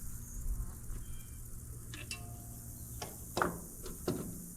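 A few light metallic clicks and knocks from tools and fittings being handled on the tractor's fuel system, over a steady low hum.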